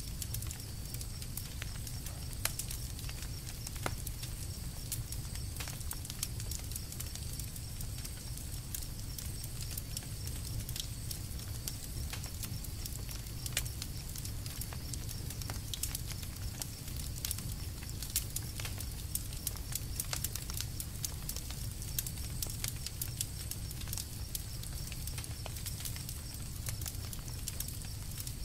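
Campfire crackling, with irregular sharp pops and snaps over a steady low rumble of the burning fire.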